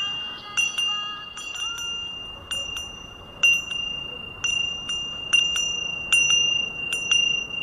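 A ghanti, a Hindu bell, rung steadily by its clapper: a strike about once a second, often with a quick second stroke, over a steady high ring that carries on between strokes.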